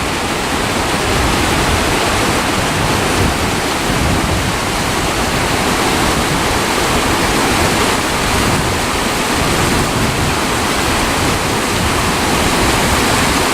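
Steady rush of flowing water, loud and unbroken, like a mountain stream or small falls close by.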